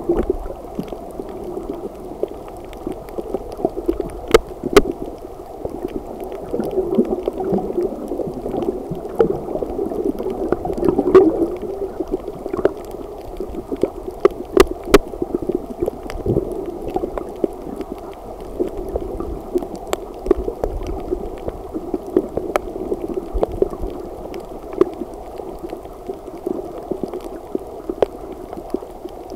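Water sounds picked up by a camera underwater: a steady, muffled gurgling wash with scattered sharp clicks throughout.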